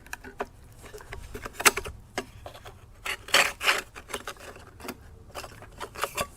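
Clicks, knocks and a short scraping rattle of hands handling an old transistor tester and its corroded batteries, loudest about three seconds in.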